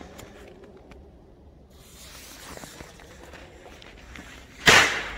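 A firecracker going off with one sharp, short bang about four and a half seconds in, after a few quiet seconds.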